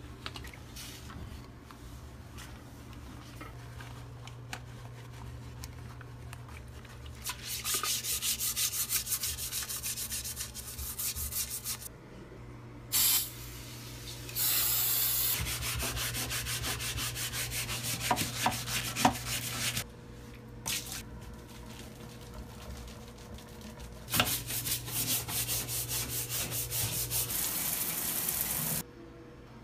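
Scrubbing on bathroom fixtures: a gloved hand works a scrubber back and forth on a toilet and a shower floor in quick rhythmic strokes, in several spells. There is a short hiss about halfway through and a steady low hum underneath.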